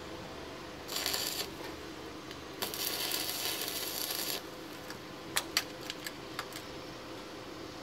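Stick (arc) welder tack-welding a steel exhaust pipe: a short crackling arc about a second in, then a longer crackling arc of nearly two seconds. A few sharp metallic clicks follow as the pipe is handled.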